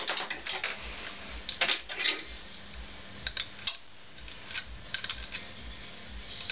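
Scattered light metallic clicks and clinks of carburetor parts and cable fittings being handled on a Honda CX500 motorcycle, with a short flurry about two seconds in, over a faint steady hum.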